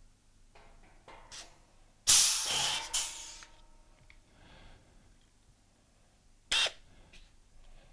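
Pneumatic rivet nut gun cycling: a loud burst of compressed-air hiss about two seconds in, lasting about a second and a half, then a short sharp hiss of air near the end.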